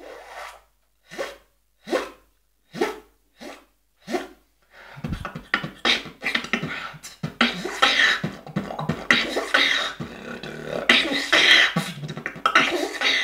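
Beatbox zipper sound, made by breathing in through a small gap between the lips, done about six times as short separate sounds. Then, from about five seconds in, a fast, continuous beatbox pattern.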